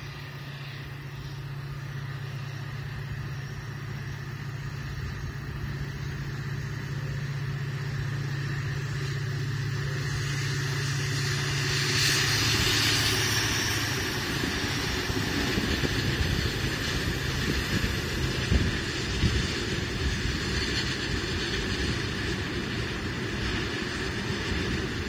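FGC Series 254 General Motors diesel locomotive approaching with a steady engine drone, loudest as it passes about halfway through. Then the loaded potash hopper wagons roll by, their wheels rumbling with repeated sharp clacks.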